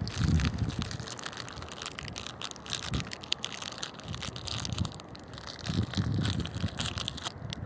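Close crackling and rustling on the phone's microphone, with a few low buffets, as the phone is handled while walking.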